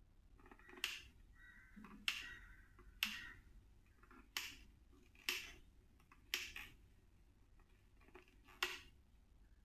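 Seven sharp clicks and clacks, about a second apart with a longer gap before the last, as hard parts of a mixer grinder are handled and set down.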